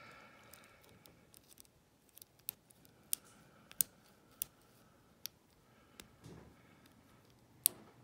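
A lock pick working the pins of a Lince 50mm brass padlock under light tension: small, sharp metallic clicks at irregular intervals, about a dozen of them.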